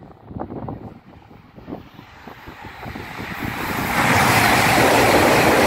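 E5-series Shinkansen bullet train approaching at speed along the platform track. Its rush of air and rolling noise swells from about two seconds in and becomes loud and steady about four seconds in.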